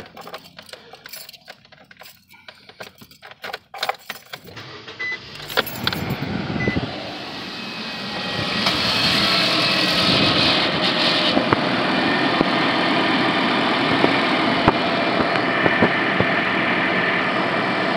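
Keys jangling and clicking in the ignition of a 2016 Nissan Versa. About five seconds in, its four-cylinder engine starts and settles into a steady idle, turning a newly installed serpentine belt.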